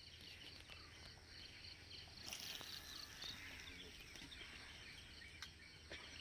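Faint insects, crickets or similar, chirping in a steady pulsing rhythm of several pulses a second, with a few short bird chirps about two seconds in.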